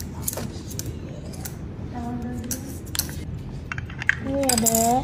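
Scattered light clicks and clatter of plastic children's tableware and utensils being handled on a counter, with a child's short vocal sounds about two seconds in and again near the end.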